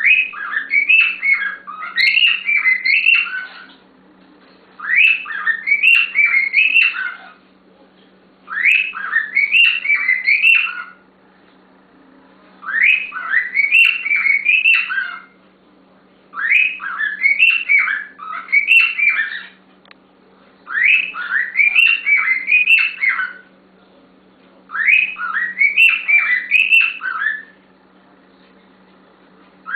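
Pet bird singing the same warbling phrase over and over: seven phrases of quick sweeping whistled notes, each lasting about two and a half seconds, with a short pause between them.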